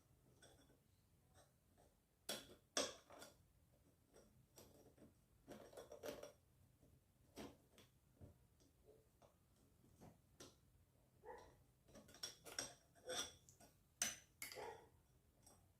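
Faint, irregular clicks and clinks of small metal and plastic parts of a pedestal fan's motor housing being handled and fitted together by hand, coming thicker near the end.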